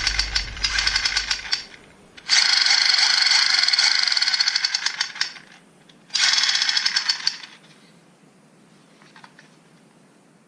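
Toy gun firing in rapid automatic bursts: three rattling bursts of fast, even clicks, the middle one the longest, then a faint short rattle near the end.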